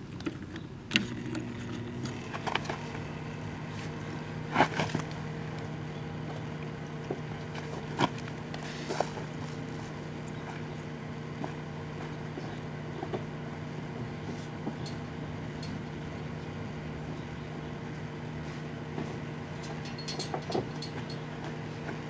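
Sharp Half-Pint compact microwave oven starting about a second in and running with a steady hum as it heats a balloon of apple cider. A few short, sharp clicks come at intervals over the hum.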